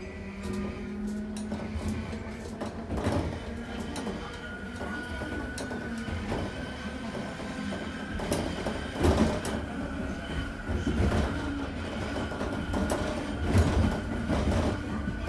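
Randen (Keifuku Electric Railroad) tram heard from inside the car as it pulls away and runs along the track, with a steady running noise and a faint whine. Its wheels knock over rail joints and points, with the loudest knocks about nine seconds in and again near the end.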